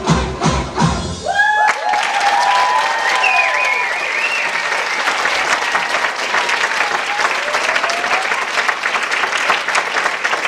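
The dance music ends on its last drum beats about a second in, then an audience breaks into sustained applause mixed with cheering voices.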